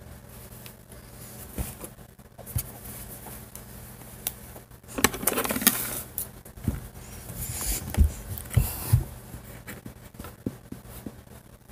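Cloth being handled and rustled on a table, with scattered knocks and clicks. Two louder rustling stretches come in the middle, the second with a few sharp knocks.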